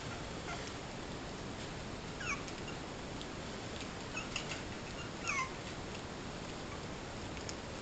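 Puppies feeding together from one bowl, giving a few short, high squeaks and whimpers: one about two seconds in, a couple just after four seconds and a longer falling one a little after five seconds, over a steady hiss.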